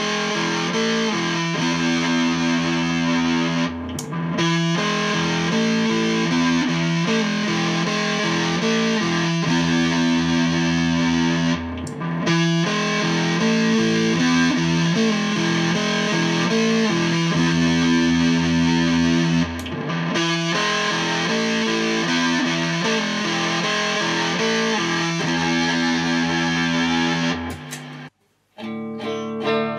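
Fuzz-distorted electric guitar riff from a Squier Telecaster through a Tone Electronix Animalizzer, a Big Muff-style fuzz pedal, into an EVH 5150 III amp's clean channel. The riff repeats as a loop about every eight seconds. Partway through, the pedal's first stage goes from silicon clipping diodes to no diodes. Near the end the sound drops out briefly and comes back less distorted.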